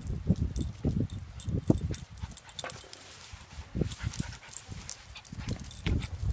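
Two small dogs, a Shih Tzu and a puppy, making short, irregular vocal sounds as they wrestle in play.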